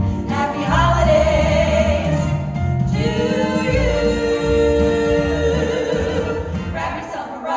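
Female vocal group singing a Christmas song in harmony over instrumental backing, holding a long chord from about three seconds in.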